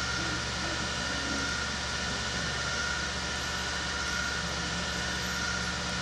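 Steady machine hum and hiss with a faint constant high whine, unchanging throughout.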